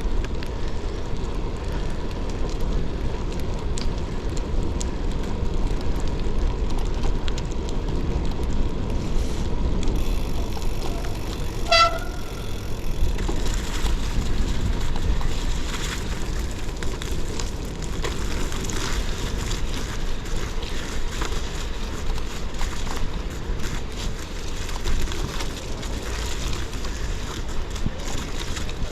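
Rose Backroad AL gravel bike rolling slowly over snowy, icy ground: steady tyre noise with wind muffled on the camera, plus scattered crunching clicks. About twelve seconds in there is one brief high beep.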